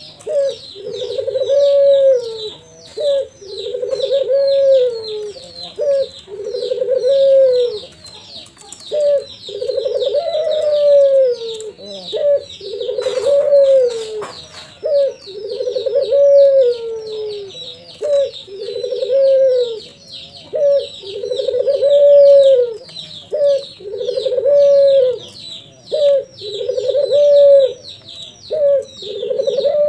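Caged ringneck dove (Barbary dove) cooing steadily. A long coo that rises and falls alternates with a short note, repeating about every two seconds, over continuous rapid high chirping of small birds.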